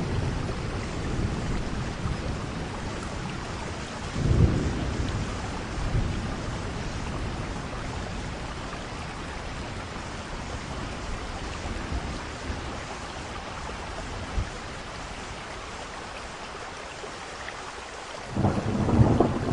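Steady rain hissing, with thunder rumbling: a low roll about four seconds in, a smaller one around six seconds, and a louder roll starting near the end.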